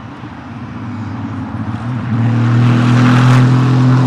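Aston Martin Vantage GT race car approaching at speed on a circuit, its engine note holding a steady pitch and growing louder over the first three seconds as it nears and draws level with the microphone.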